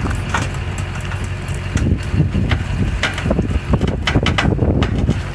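Winching of a dead ASV RC100 tracked skid steer: a steady low motor hum under irregular clicks, creaks and knocks from the rig and machine under strain. The knocks come more often after about two seconds.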